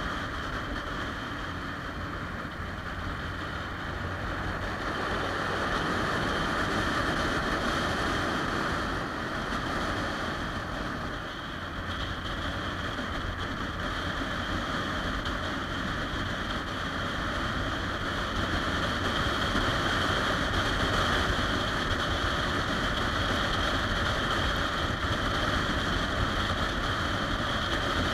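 Triumph Rocket 3 Touring motorcycle cruising along: steady engine and road rumble with wind rushing over the handlebar-mounted microphone.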